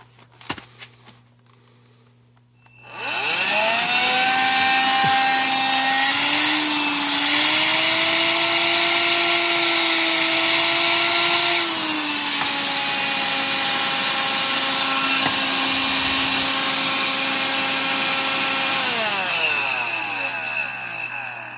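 Electrolux ZB3106AK cordless stick vacuum cleaner switched on after a few clicks: its motor spins up with a rising whine and runs steadily with a loud airy hiss, the pitch shifting up and then down a little along the way, then is switched off and winds down with a falling whine near the end. A test run on its freshly replaced 14.4 V lithium battery pack.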